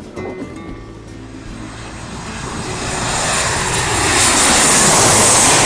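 Jet airliner passing low overhead on its landing approach, gear down: the engine noise swells over a few seconds into a loud rushing hiss that peaks near the end.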